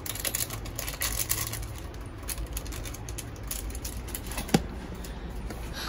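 Light irregular clicking and scraping from stirring stew in an aluminium pot with a wooden spatula while a plastic seasoning sachet is squeezed in, over a low steady hum. One sharp knock with a brief ring comes about four and a half seconds in.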